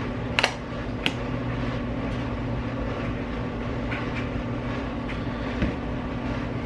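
A steady low hum throughout, with two sharp clicks about half a second and a second in and a few fainter clicks later, as a small clear plastic container is pressed and snapped shut.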